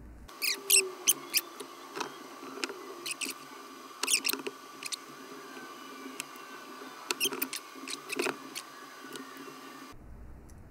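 Soldering iron on a tiny flight-controller pad: rosin flux crackling and spitting in irregular clusters of short, sharp, squeaky pops as the joint heats. A faint steady high tone sits underneath.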